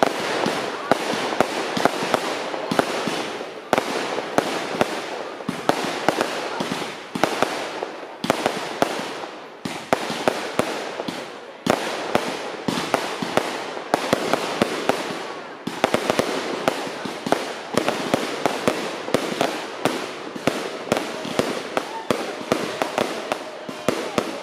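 Fireworks display: aerial shells bursting in quick succession, with sharp bangs several times a second over a continuous crackle of burning stars.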